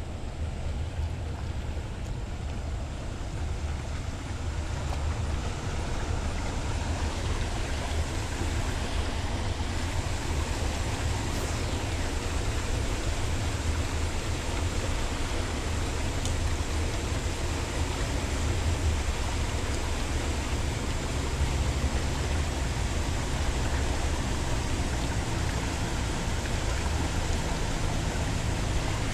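Steady rush of a small creek's water running over rocks, with a constant low rumble underneath.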